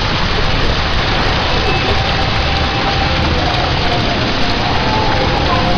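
Heavy rain falling, a loud steady hiss with no break.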